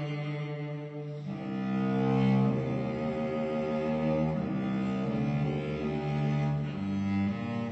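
Slow background music on bowed strings, led by low cello-like notes held for about a second each.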